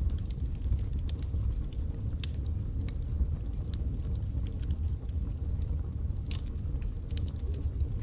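Wood logs burning in a fireplace: a steady low rumble of flame with frequent small, sharp crackles and pops at irregular intervals, one louder pop a little past six seconds in.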